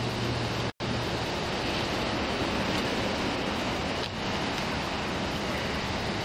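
Steady rushing outdoor noise on a police body camera's microphone, with no distinct events; the audio drops out completely for an instant less than a second in.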